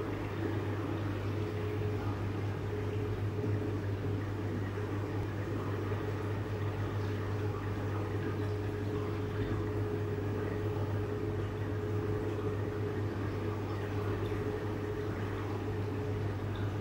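Steady low hum of marine aquarium pumps and equipment running, with a fainter constant higher tone above it and a faint wash of circulating water.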